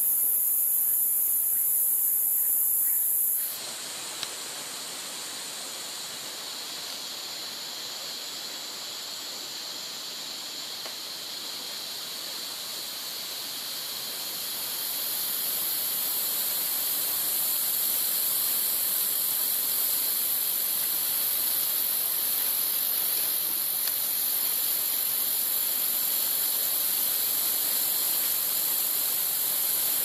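Rainforest insect chorus: a steady, high-pitched shrill drone of many insects. It drops sharply about three and a half seconds in and grows louder again about halfway through.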